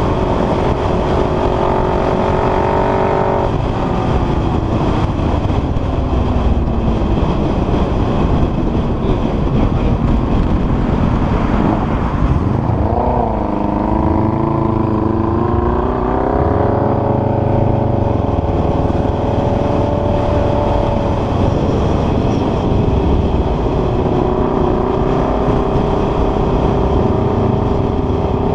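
Honda CBR sport bike engine under way, heard over heavy wind rush on the camera's microphone. The engine note holds steady, falls in pitch after about three and a half seconds, then dips and climbs again around twelve seconds in before settling to a steady, lower note for the last few seconds.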